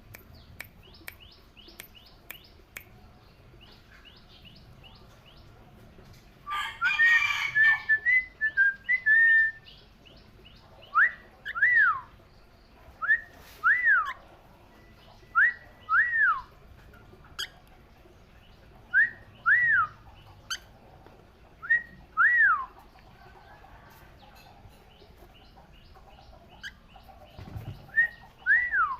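Pet parrot calling: a harsh squawk about seven seconds in, then short whistles, each rising sharply and dropping back, repeated mostly in pairs every few seconds.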